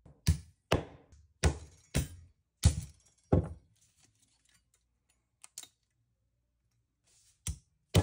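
Hammer tapping a thin chisel blade to break the spot-welded nickel tabs off the lithium-ion cells of a power-tool battery pack. A string of sharp knocks about two a second, a pause of a few seconds with a couple of faint clicks, then the knocks start again near the end.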